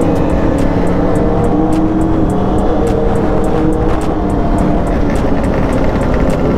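Wind rushing over a helmet microphone on a moving Yamaha R1 sportbike, with the inline-four engine running underneath.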